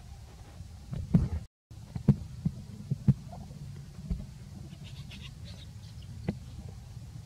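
Several short, high-pitched squeaks from a baby macaque around five seconds in, over a steady low rumble. Sharp knocks come in the first three seconds and once more near the end, and the sound cuts out briefly about a second and a half in.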